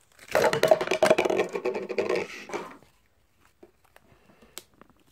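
Slime being pulled and ripped apart: a dense crackle of many small pops and clicks lasting about two and a half seconds, then a few faint clicks.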